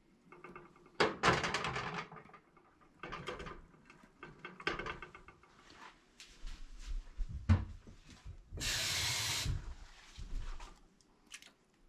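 Kitchen handling noises as seasoned squirrel pieces are pushed into a glass baking dish and a glass lid is set down on the stove top: scattered clatters and knocks, a sharp knock late on, then a steady hiss lasting about a second.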